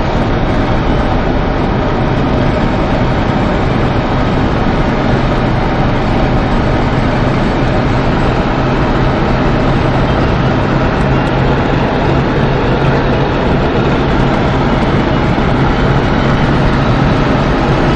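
Cabin noise inside a Mercedes C220 at about 180–200 km/h: a steady engine drone near 4,000 rpm under wind and road noise, held evenly while the car gains speed slowly.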